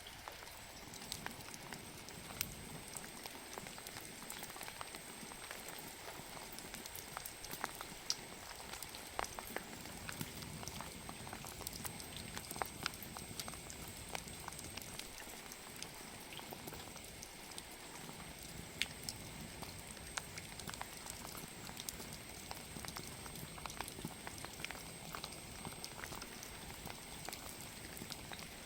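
Wood fire crackling: a steady hiss with frequent sharp, irregular pops and snaps.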